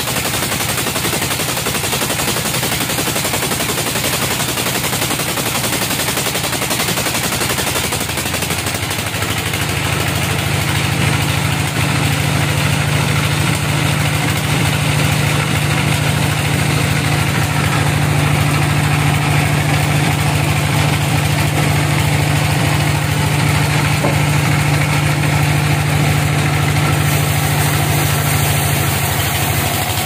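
Large band sawmill cutting a teak log: steady loud machine noise with a rapid rattle. About nine seconds in, a steady low hum joins and holds until near the end.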